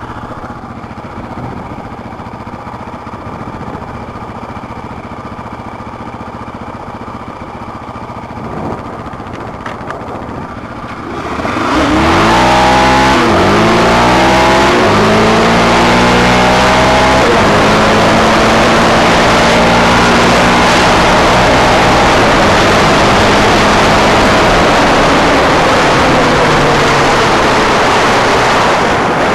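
Sport quad (ATV) engine running low and steady, then opening up hard about eleven seconds in: it revs up through several quick gear changes and holds at high revs, with wind and rushing noise at speed.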